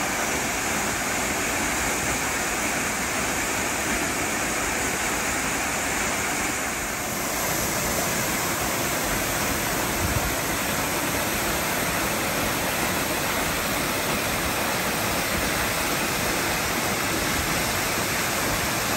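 Marymere Falls, a forest waterfall, rushing steadily as it pours into its plunge pool.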